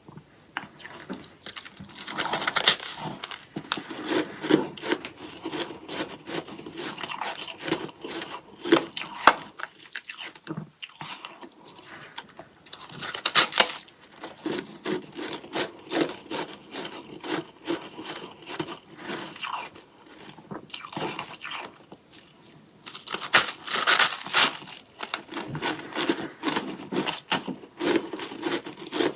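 Crunching and chewing of freezer frost: a mouthful of frost chunk bitten and chewed in dense crackling bursts, with a couple of brief pauses between bites.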